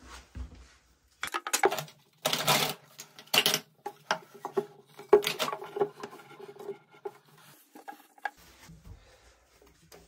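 Grey plastic drain pipe fittings being handled and pushed together, making plastic scrapes, rubbing and knocks. The noises are loudest over a couple of seconds starting about a second in, then thin to scattered clicks and rubs.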